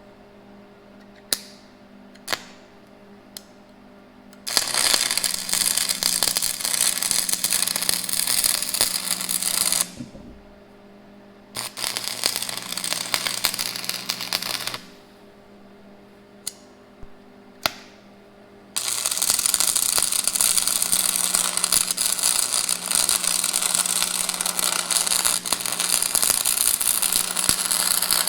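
Arc welding: three stretches of steady crackling arc, about five, three and ten seconds long, each stretch preceded by a few short snaps of the arc striking. A nut is being welded onto a broken bolt stub so the bolt can be turned out.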